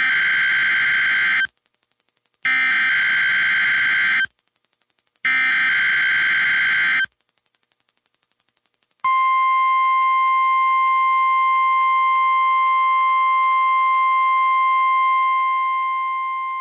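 NOAA Weather Radio SAME header sent three times as harsh screeching data bursts, each about two seconds long with a second's pause between them. About nine seconds in, the steady 1050 Hz warning alarm tone starts and holds, growing quieter near the end. This is the opening of a Required Weekly Test broadcast.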